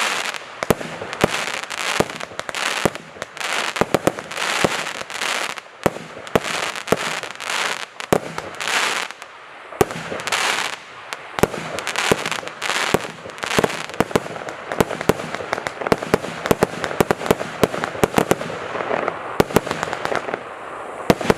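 Multi-shot consumer fireworks battery (cake) firing a long run of shots. Short whooshing bursts come about once a second, mixed with many sharp cracks, and the crackling grows thicker in the second half.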